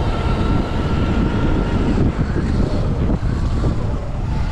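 Heavy wind rush on the microphone of a stock Sur Ron X electric dirt bike being ridden at race speed. A thin, high whine from the bike's electric motor runs through the first couple of seconds, then fades into the wind.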